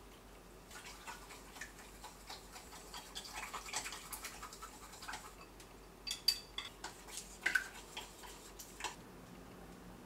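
Water poured in a thin stream into a stainless steel mixing bowl, making light crackling ticks. After that a dry ingredient is tipped in from a small bowl, with a few sharper ticks and taps against the metal, some of which ring briefly.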